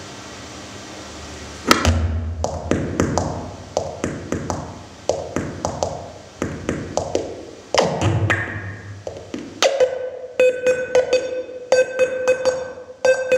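Home-made magnetic-switch feedback machine sounding through a mixer and effects pedals. A steady hum gives way, about a second and a half in, to sharp electronic clicks, each with a ringing tone that dies away. From about ten seconds in the clicks turn into a pulsing, pitched feedback tone in an uneven rhythm.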